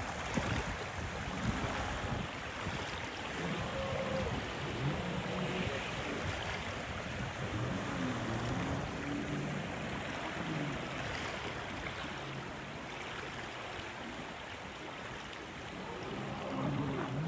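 Wind and small waves washing on a pebble lakeshore, with the faint engine of a distant speeding boat whose pitch wavers.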